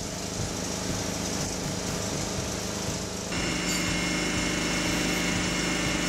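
Steady machine noise, then about three seconds in the steady whine of an electric diamond core drill boring into concrete, a little louder.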